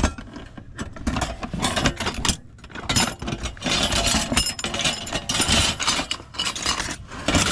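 Small metal odds and ends (bottle openers, cutlery, a wire toast rack) clinking, rattling and scraping against each other in a cardboard box as hands rummage through them, with irregular clatters and rustling.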